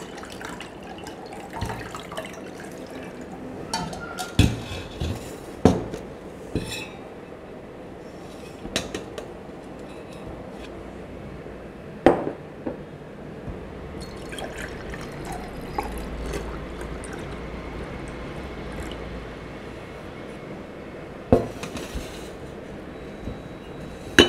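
Masala buttermilk being poured from a steel vessel through a wire-mesh strainer and then into a drinking glass: a steady pouring trickle, broken by several sharp clinks of steel and glass utensils.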